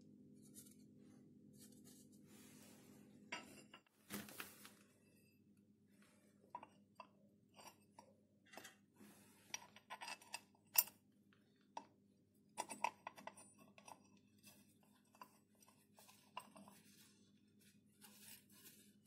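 Light metallic clicks and clinks of an aluminium mounting plate being handled and positioned against a lathe carriage, the loudest a sharp click about eleven seconds in, over a faint steady hum.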